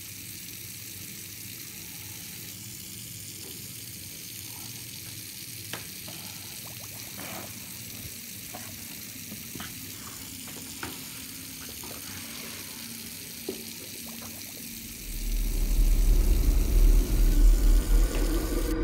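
Steady hiss with a few faint clicks. About fifteen seconds in, a loud, deep low rumble swells up and carries on.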